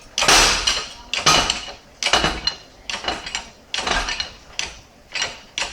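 Shop press being worked to force a seized CV joint off an axle shaft: a series of metallic clanking strokes, about one a second.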